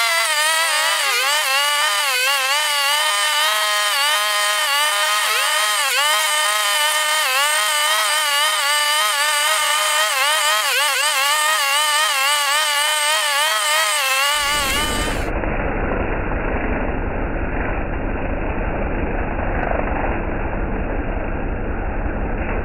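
Maruyama MBS3600RS 36 cc two-stroke backpack brush cutter running hard while cutting tough grass. Its engine note dips and recovers again and again as the cutting head bites into the stems. About 14 seconds in, the sound turns dull and muffled with a low rumble, as heard from a camera mounted on the cutter's shaft.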